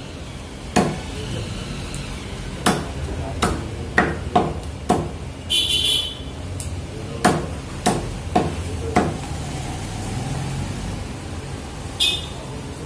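A butcher's cleaver chops through whole chickens on a chopping block: about ten sharp, irregular chops, some in quick pairs. A short hissing scrape comes about halfway through, over a steady low hum.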